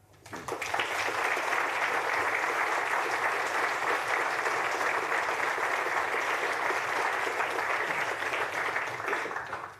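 Audience applauding in a lecture hall, swelling up within the first second, holding steady for about nine seconds, then dying away near the end.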